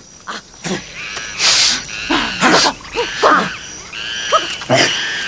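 Wordless ape-like vocalising by a group of early humans (Homo habilis, as voiced in a reenactment): several short hooting cries that bend up and down in pitch, mixed with breathy huffs.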